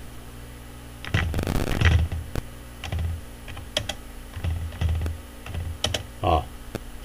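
Computer keyboard typing: irregular keystrokes and clicks starting about a second in, each with a dull thud.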